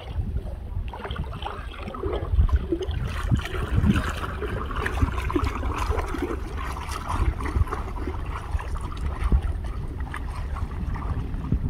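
Water sloshing and splashing unevenly over a steady low rumble.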